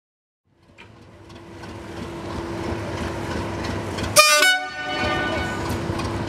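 A Class 37 diesel locomotive's engine running and growing louder. About four seconds in its horn gives one short, loud blast, then the engine carries on.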